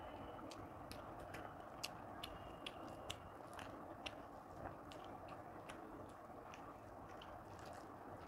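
Quiet chewing of a mouthful of rice and banana-flower curry: many soft, sharp wet mouth clicks and smacks over a steady low hiss.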